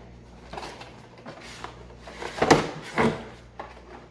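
Packaging and boxed parts being handled: scraping and rustling with several knocks, the loudest two about two and a half and three seconds in.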